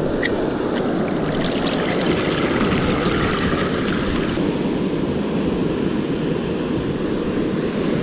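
Shallow ocean surf washing in and out over the sand at the water's edge, a steady rush of water and foam, with wind buffeting the microphone. The upper hiss thins out about halfway through.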